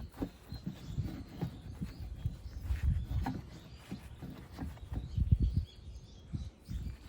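Irregular low knocks and clunks, several a second, the loudest cluster about five seconds in.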